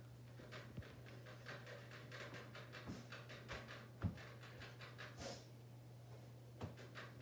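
Pet rabbits drinking their water: a quick, faint run of clicks, with a few soft thumps among them.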